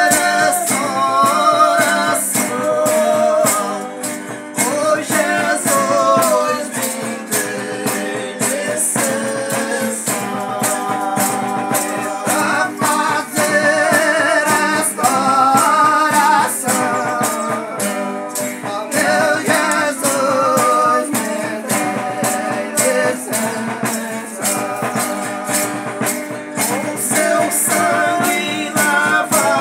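A Folia do Divino ensemble singing a farewell song (cantoria de despedida) in several voices together. Strummed acoustic guitars and a jingling tambourine keep a steady beat underneath.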